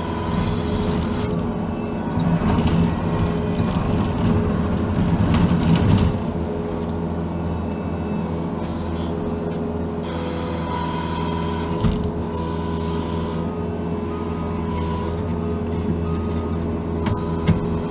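Case TV450 compact track loader's diesel engine and hydraulics running under work, heard from inside the cab, louder for a few seconds near the start, with a single knock about twelve seconds in.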